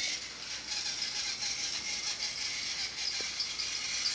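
Battery-powered Thomas the Tank Engine toy train running along plastic track: a steady whir from its small motor with a light, rapid rattle. There is one small click about three seconds in.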